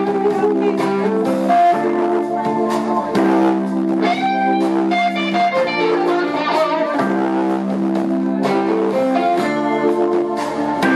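Live blues band playing, led by an electric guitar of Les Paul shape with long held and bent notes, while drum hits sound through it.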